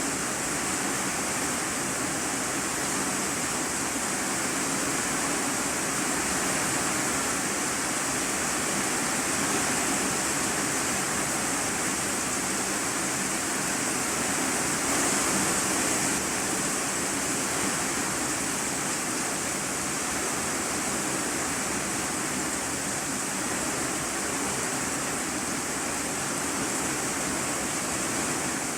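Heavy rain falling on an iron-sheet roof, heard from inside the room beneath it: a steady, dense hiss that does not let up.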